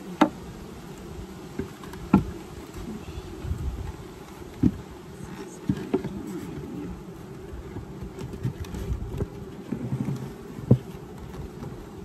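Honeybees buzzing in a steady hum around an opened hive, broken by several sharp knocks and taps spaced irregularly, the loudest near the start and about two seconds in.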